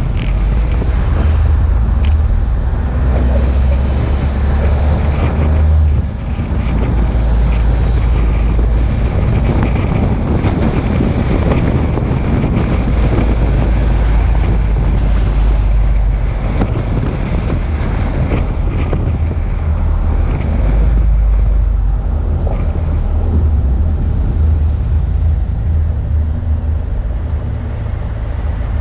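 Wind buffeting the microphone over a steady low rumble, with a brief dip about six seconds in.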